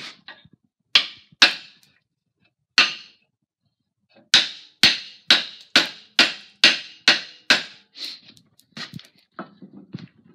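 Hammer blows driving a wooden handle down through a tomahawk head. Three spaced strikes come first, then a steady run of about nine strikes at roughly two a second. Lighter knocks and clatter follow near the end.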